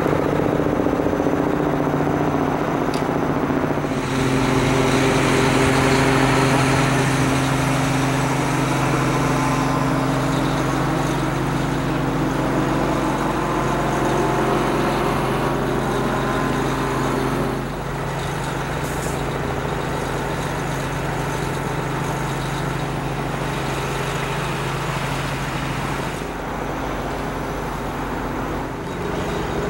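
Roadway traffic noise with the steady hum of an idling heavy vehicle engine, which eases off about 18 seconds in.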